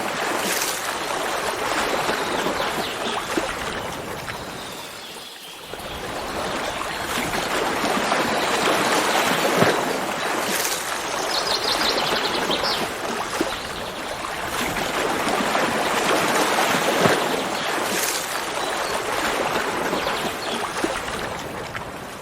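Stream water running and splashing, swelling and easing off in waves, with a brief bird trill about halfway through.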